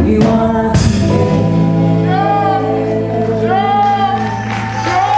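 Live ragga band playing, with a woman singing over the music in long, bending high notes.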